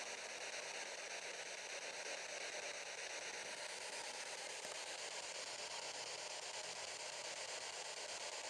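Steady hissing radio static from a spirit box, a radio that scans across stations, played through a small external speaker.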